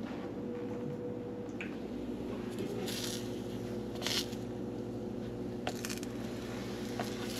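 Kitchen handling sounds: a few short, soft squishing and rustling noises over a steady low hum.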